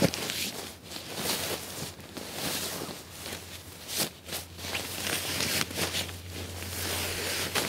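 The outer shell of a North Face Blue Kazoo down sleeping bag rustling and swishing as it is stuffed by hand into its compression stuff sack, in a run of irregular scrunches, over a low steady hum.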